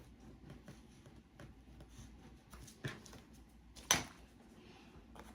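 Quiet handling of a paper craft piece and tools, with faint ticks and two sharp clicks about a second apart near the middle, the second the louder.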